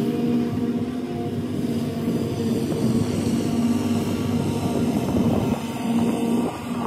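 Riding lawn mower engine running steadily while mowing, a constant engine hum with a rough, noisy edge.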